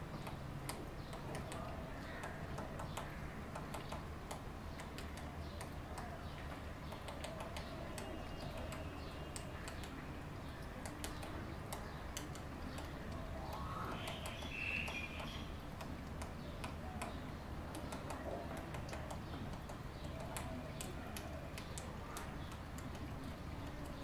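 Fulvous-breasted woodpecker pecking at dead wood, its bill striking the trunk in a run of irregular taps.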